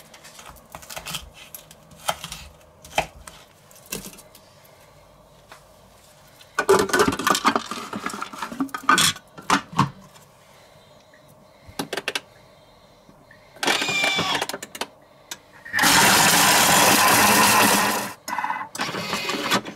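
Thermomix food processor chopping raw fish fillets in short bursts of its motor and blade. The second burst, about 2.5 s long near the end, is the loudest and steadiest. Before that, knife knocks and lid and bowl handling clatter.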